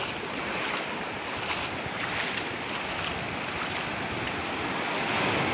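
Sea waves breaking and washing on the shore: a steady rush of surf that swells a little near the end.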